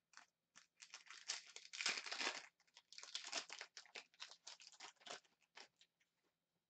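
Crinkling and tearing of an Upper Deck Synergy hockey card pack's wrapper as it is opened and the cards are handled: a dense run of crackles, loudest about two seconds in, trailing off near the end.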